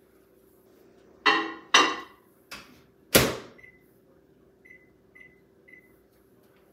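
Microwave oven door clunking and slammed shut, then four short keypad beeps as the cooking time is set, the last three about half a second apart.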